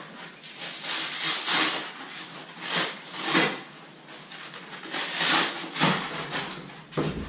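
Rigid white polystyrene foam packing inserts being handled and pulled from a cardboard box: a run of irregular scraping, rubbing and rustling sounds, with a dull thump near the end.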